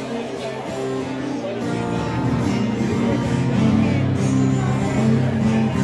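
Live music playing over crowd chatter; the low held notes get louder about two seconds in.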